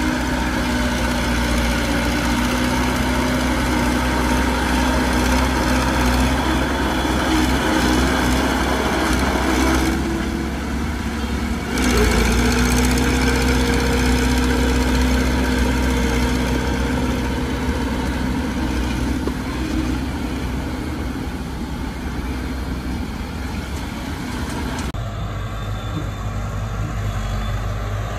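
Heavy diesel engines of earthmoving machinery running steadily, a deep rumble with a steady engine hum. The sound changes suddenly about twelve seconds in and again near the end.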